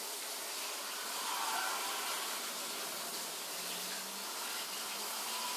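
Low, steady hiss of background noise with no clear event, and a faint brief hum about three and a half seconds in.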